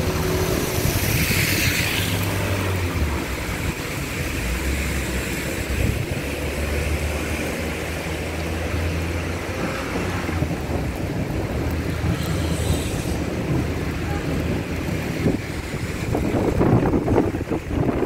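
Traffic in heavy rain: a steady hiss of rain and tyres on wet asphalt over a low engine hum, with a car swishing through the water about a second in. Wind buffets the microphone in the last few seconds.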